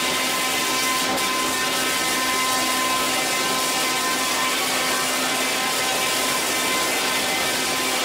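Log debarking machine running, its spinning cutter heads grinding the bark off a turning log: a steady, dense machine noise with a constant hum.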